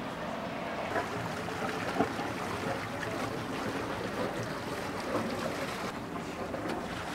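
Small motor boat running slowly at low speed, a steady low engine sound mixed with outdoor water and wind noise, with a brief tap about two seconds in.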